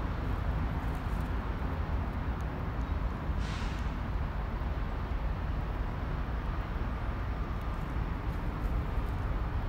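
Freight train of autorack cars rolling past: a steady low rumble of steel wheels on the rails, with a brief hiss about three and a half seconds in.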